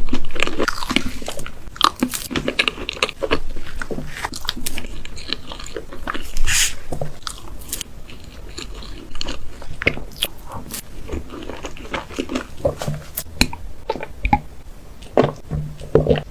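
A person biting and chewing cake close to the microphone: a dense, irregular run of wet mouth clicks, smacks and crunches.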